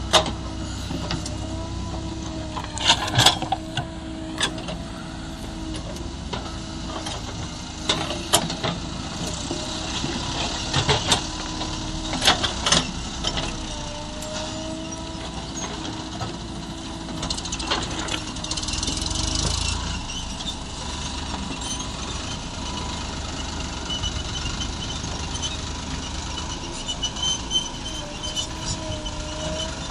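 JCB 3DX backhoe loader's diesel engine running steadily, its pitch wavering now and then under load. Repeated sharp metallic clanks and knocks come through it, with a short hiss near the two-thirds mark.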